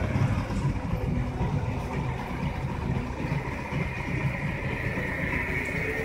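Motorcycle engine idling with a steady low rumble, and a higher hiss swelling in over the last two seconds.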